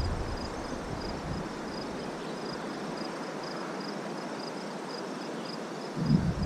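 A cricket chirping evenly, about two high chirps a second, over a steady rushing hiss of outdoor background noise. A low rumble comes in near the end.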